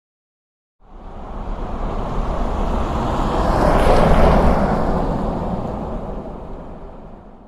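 A vehicle driving past: an even rushing noise that swells up, is loudest about four seconds in, then fades away.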